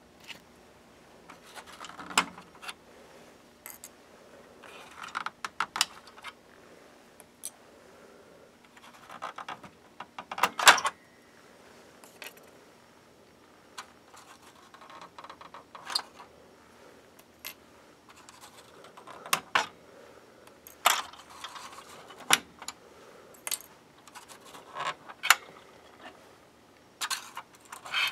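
Irregular plastic clicks, taps and light rattles as a GM truck instrument cluster is handled on a steel bench and its gauge needles are pulled and pried off their shafts. The loudest clatter comes about a third of the way in.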